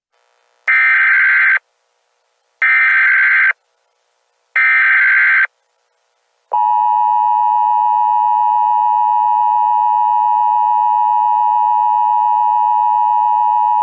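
Emergency Alert System broadcast tones: three short bursts of the SAME data header, about a second each with a second's gap between them, then about six and a half seconds in the steady two-tone EAS attention signal begins and holds.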